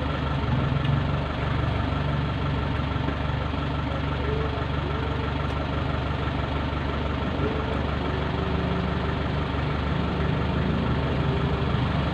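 A steady low mechanical drone, like a motor or engine running, at an even level throughout.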